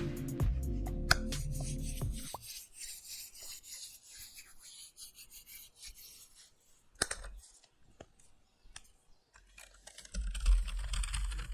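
Background music with sharp clicks that stops about two seconds in. It is followed by faint, uneven rubbing and scratching noises with a few isolated clicks, and a louder rough rubbing noise near the end that cuts off suddenly.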